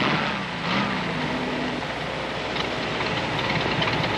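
Steady mechanical running noise with a rushing hiss, and a low hum that falls in pitch in the first second or two.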